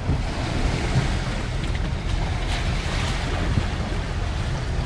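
Toyota Tundra TRD Pro wading through a water pit about 24 inches deep, with a steady rush and slosh of water against the truck's body and underside heard from inside the cab. The truck's 5.7-litre V8 makes a low steady rumble underneath.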